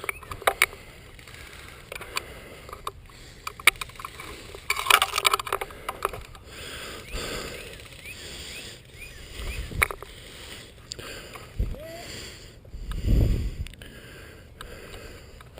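Airsoft guns firing: scattered sharp snaps and a dense run of rapid shots about five seconds in, with rustling movement and a low thump near the end.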